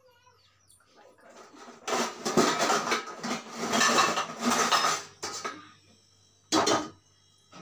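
Stainless steel kitchen utensils clattering and clinking as they are moved about on a shelf, for about three seconds, then one more short clatter near the end.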